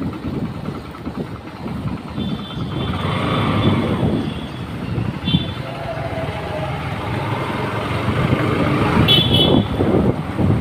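Motorcycle running along a street, a steady rumble of engine and wind, with short high-pitched horn toots three times: about two seconds in, about five seconds in and about nine seconds in.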